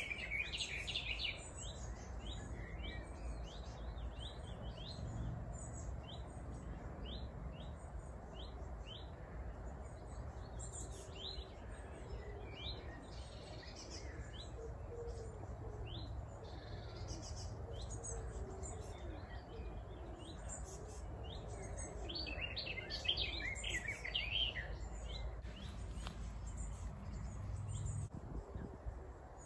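Woodland songbirds singing: one bird repeats a short, high, rising note over and over, and a fuller burst of song comes later on, over a steady low rumble.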